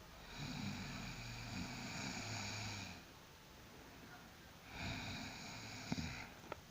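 A person snoring in their sleep: two long snoring breaths, the first about two and a half seconds and the second about a second and a half, followed by a couple of short clicks near the end.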